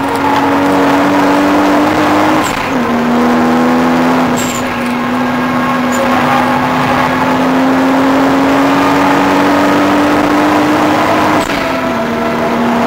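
Toyota Supra's straight-six engine heard from inside the cabin, accelerating at speed on track. There are two upshifts, one about two and a half seconds in and one near the end. Each drops the pitch, which then climbs slowly again.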